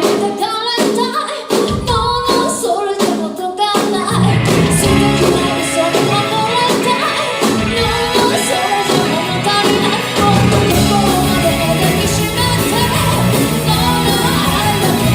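Live band music with singing: short stop-start hits with gaps between them for the first few seconds, then the full band comes in steadily about four seconds in.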